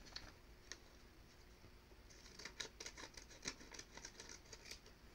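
Scissors cutting paper: a run of faint, quick snips that starts about two seconds in.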